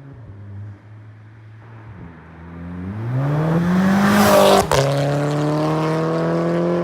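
Mk6 Golf GTI's turbocharged 2.0-litre four-cylinder, breathing through a catless downpipe and a cat-back exhaust with no resonator: a low steady engine note, then rising in pitch as it accelerates. A short sharp pop comes at a gear change nearly five seconds in, after which the note holds steady at a lower pitch.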